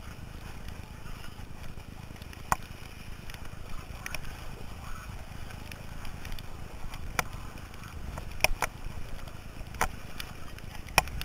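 Four-person racing canoe being paddled hard: a steady low rushing of water and wind, with sharp clicks every second or two from the paddling.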